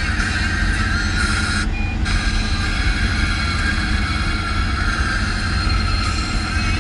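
Road and engine noise inside a moving VW T5 van: a steady low rumble with a hiss of tyres and air above it.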